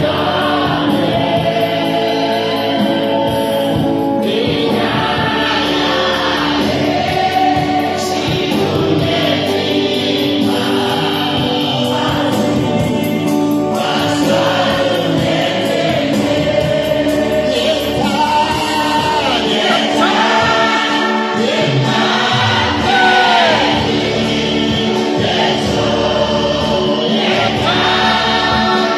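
A choir sings a Kalenjin gospel worship song, loud and unbroken, over steady held accompaniment.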